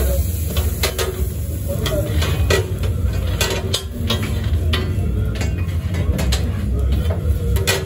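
Steel knives scraping and tapping on a steel flat-top griddle, and a flat metal press set down on a toasting sandwich, with food sizzling. The sharp metal clicks and knocks come irregularly, a dozen or so, over a steady low hum.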